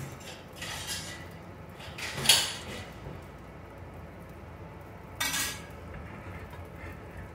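Dishes and cookware being handled: three short clinking clatters, the loudest about two seconds in and another around five seconds in.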